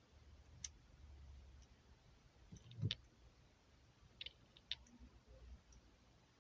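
Faint handling noises from parts of an airsoft rifle: a few scattered sharp clicks and one louder knock about three seconds in.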